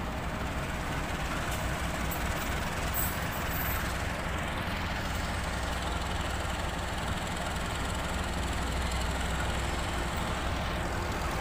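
Passenger train of KAI Ekonomi-class coaches rolling past on the track: a steady rumble of wheels on rails.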